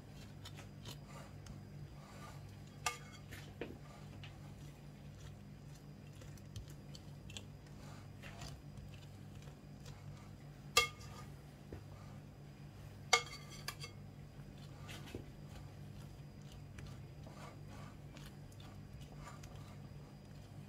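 Metal icing spatula spreading frosting on a cake, with soft scrapes and scattered light clinks of the blade against the bowl and the glass cake stand; two sharper clinks come about eleven and thirteen seconds in. A steady low hum runs underneath.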